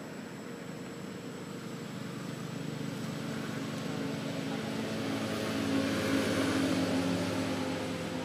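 A motor vehicle's engine hum, swelling to its loudest about six seconds in and easing off near the end, as if the vehicle passes by.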